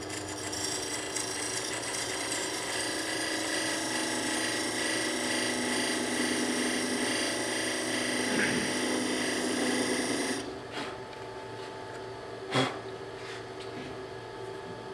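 Beading tool cutting a bead into a wooden bowl spinning on a lathe: a steady scraping hiss with a whine. It stops suddenly about ten seconds in, and one short knock follows a couple of seconds later.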